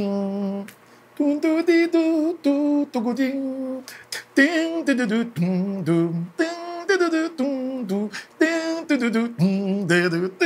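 A voice singing a Congolese rumba melody without accompaniment, in short phrases with held, wavering notes.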